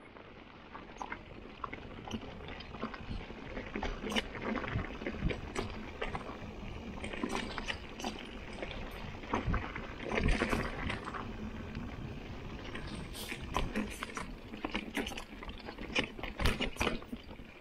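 Mountain bike rolling down a rough trail: tyres on dirt and gravel, with frequent clattering knocks from the bike over bumps.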